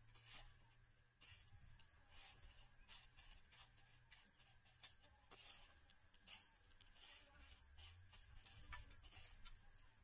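Faint, irregular scratchy crunching and rustling of fingers pressing battered chicken pieces into coarse dry crumbs on a plastic tray, over a low steady hum.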